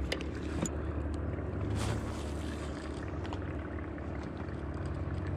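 A steady low hum with a few faint clicks and knocks on top, the loudest of them around two seconds in.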